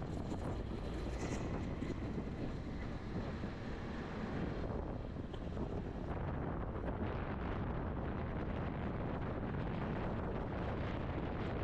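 Steady wind rumbling and buffeting on the microphone, with no distinct events.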